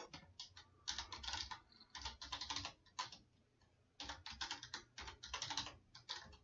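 Faint typing on a computer keyboard, a password being entered at a terminal and then retyped: two runs of quick key clicks, the first ending in a single separate key press about three seconds in.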